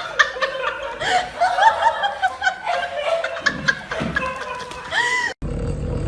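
A person laughing in quick, high-pitched bursts that cut off abruptly about five seconds in, followed by a steady low hum.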